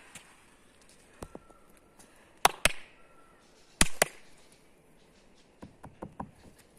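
Two pairs of sharp clicks, each pair a fraction of a second apart, with a few fainter clicks before them and a run of quieter taps near the end.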